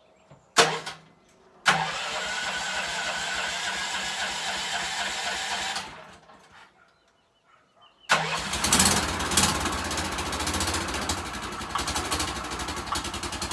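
Golf cart's swapped-in Predator 420 single-cylinder engine being started. The first try spins for about four seconds and winds down. The second, about eight seconds in, catches and keeps running with an even pulsing beat, its exhaust gasket blown.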